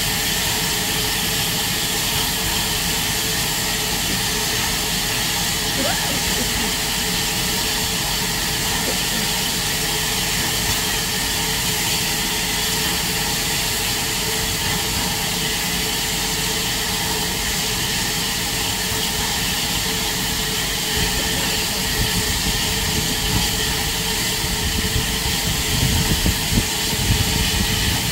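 Steady, loud hiss of steam from Bulleid Battle of Britain class locomotive 34067 Tangmere standing in steam before departure, with a few low bumps near the end.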